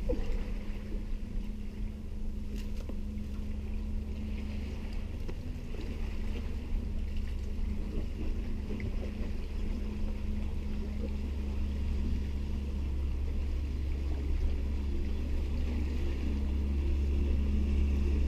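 Steady low drone of a motorboat engine out on the sea, with a constant hum over the rumble, growing louder toward the end.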